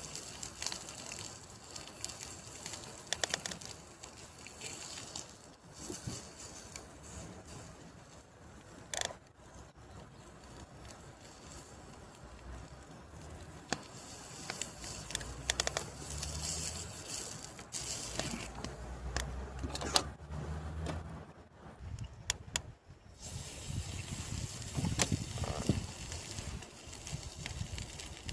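Wood campfire crackling with scattered sharp pops over a hiss of meat sizzling on the grill. A low rumble rises in the middle and fades again.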